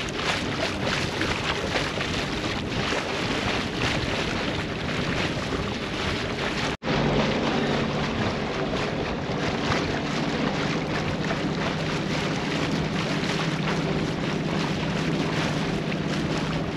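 Wind buffeting the microphone over the steady drone of a narrowboat's 30-horsepower engine pushing through the tide. The sound cuts out for an instant about seven seconds in, and after that the engine's low hum stands out more clearly under the wind.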